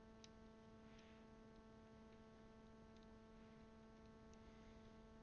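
Near silence: a steady electrical hum with a few faint clicks, about four, from plastic keycaps being fitted onto the keyboard's switches.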